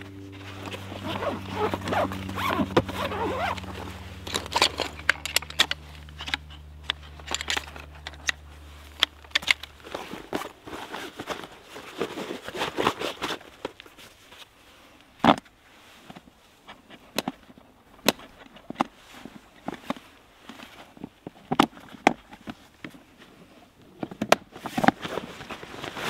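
Folding camp furniture being set up: rustling fabric and a run of sharp clicks and knocks from the metal legs of a camp stool and table, with footsteps on moss and grass. A low steady hum sounds under it and ends about ten seconds in.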